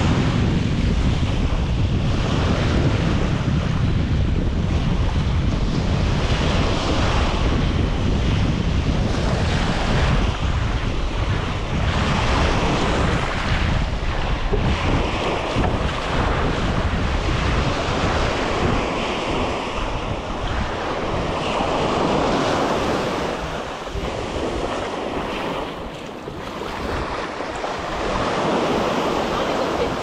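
Ocean surf breaking and washing up the sand, with wind buffeting the microphone, a heavy low rumble that eases in the second half.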